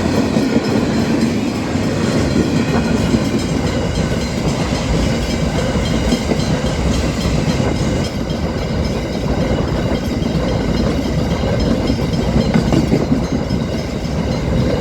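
Loaded freight train wagons passing at speed, their steel wheels running steadily and loudly over the rails.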